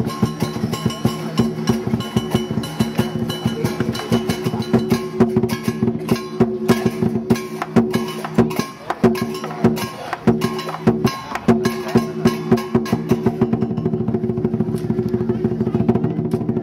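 Lion dance percussion: a large drum with clashing cymbals and gong, beaten in a fast, continuous rhythm.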